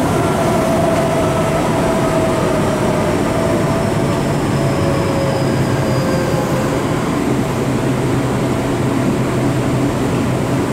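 Tokyo Metro 7000 series electric train heard from inside a passenger car while running: a steady rumble of wheels and running gear, with a faint whine that slowly falls in pitch.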